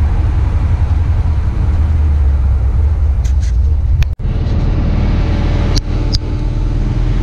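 Steady low rumble of a 1961 Chevrolet Impala driving along, heard from a camera on its hood, with wind noise on the microphone. A few brief clicks come through the middle, and the sound cuts out for an instant about four seconds in.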